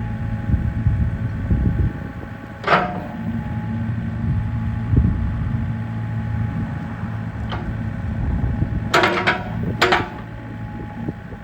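Komatsu PC54R mini excavator's diesel engine running with a steady hum, broken by a few sharp knocks: one about three seconds in, and two loud ones close together near the end.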